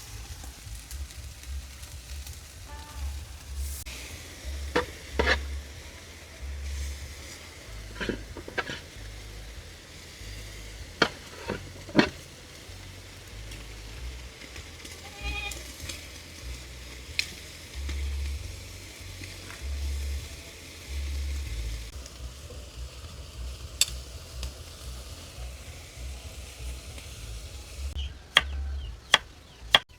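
Food sizzling in a pan while it is stirred, with scattered sharp knocks of a utensil. Near the end, a knife starts chopping on a board in quick strokes.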